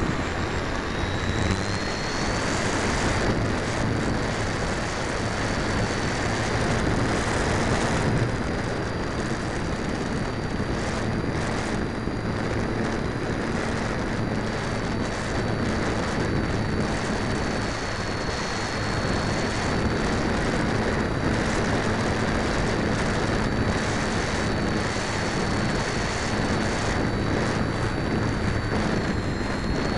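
Electric motor and propeller of an Easy Glider RC model airplane, heard from a camera on board in flight: a steady high whine that drifts slightly in pitch, under a constant rush of wind on the microphone.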